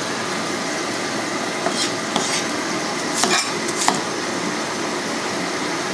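Cleaver chopping peeled potatoes into chunks on a wooden cutting board: a few sharp knocks around two seconds in and a louder cluster between three and four seconds in. Under them runs a steady hiss from the gas stove, where pork cooks in a lidded wok.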